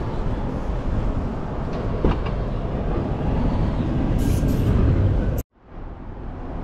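Toyota Hiace camper van's sliding side door being unlatched with a click and slid open, over steady low rumbling noise. Near the end the sound cuts out abruptly, then slowly comes back.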